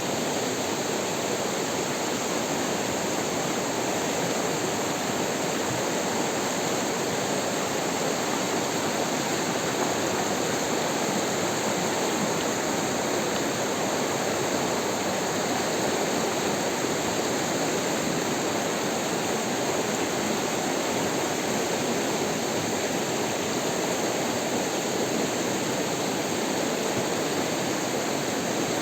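Running water rushing steadily, with no change in level.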